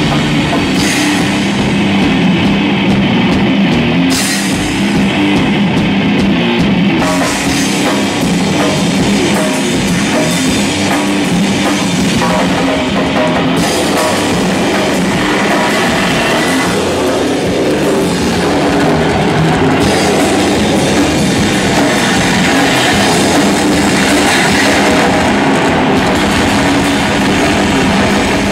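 A live heavy rock band playing loud and without a break: electric guitar over a pounding drum kit.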